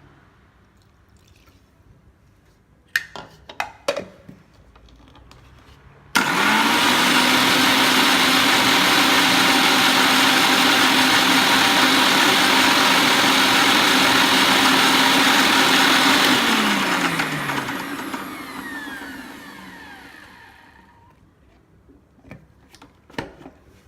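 Kitchen mixer grinder grinding ginger, garlic, cumin and pepper with a little water into a coarse wet masala. A few clicks come first, then the motor starts suddenly about six seconds in, runs steadily for about ten seconds, and winds down with a falling whine after it is switched off.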